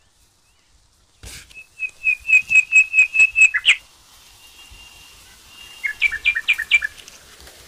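A bird calling: a run of about nine quick, evenly spaced whistled notes that grow louder, with a short snap just before it. Near the end comes a second, shorter run of two-pitched notes.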